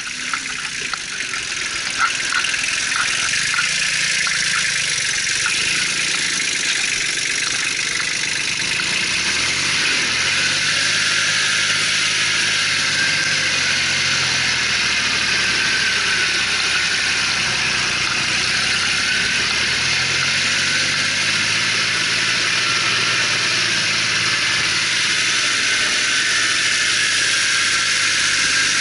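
Kubota 1600 DT compact tractor's diesel engine running steadily under load while pulling a plough. It swells up over the first couple of seconds, then holds with a slight rise and fall in engine speed and a dense mechanical clatter over the top.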